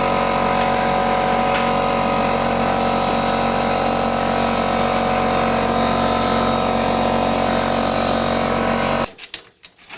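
An electric power tool's motor running at a steady speed. It starts suddenly and cuts off abruptly about nine seconds in.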